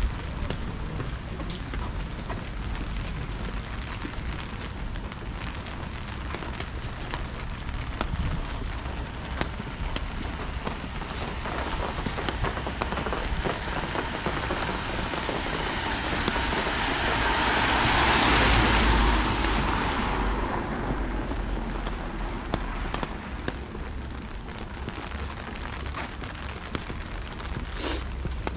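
Steady rain on a city street, with scattered drops ticking close by. About two-thirds of the way through, a vehicle passes on the wet road, its tyre hiss swelling over several seconds and then fading.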